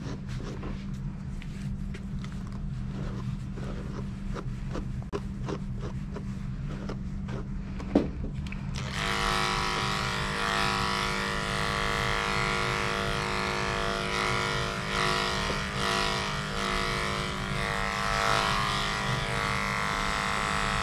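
Short rubbing strokes of brushing or combing through dog fur over a low steady hum, then a click about eight seconds in and a cordless electric dog clipper switched on, its motor buzzing steadily with a high whine as it is run over the coat.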